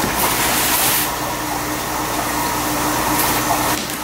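A knife blade drawn along the packing tape of a cardboard fish-shipping box, a short scratchy hiss in the first second, over a steady rushing hum that runs throughout.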